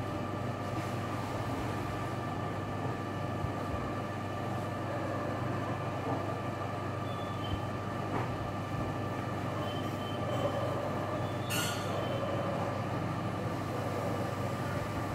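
Steady machine-like background noise with a constant whine and a low hum, and a short hiss about eleven and a half seconds in.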